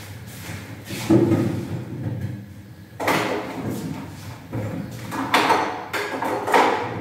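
A tall kitchen pantry cupboard being opened, with several knocks and rattles of doors and stored items being handled.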